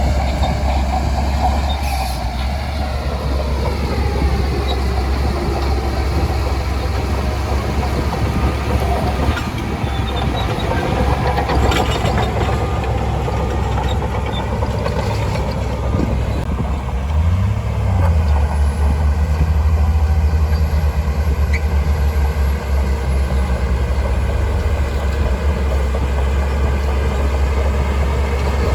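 Shantui DH17C2 bulldozer's diesel engine working under load, with its tracks running and a few metallic clanks. The engine revs up a little about two-thirds of the way through.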